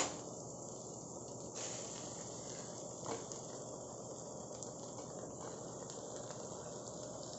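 Faint steady sizzling of fried onions and oil in an aluminium pressure cooker as raw mutton pieces go in, with a soft knock about three seconds in.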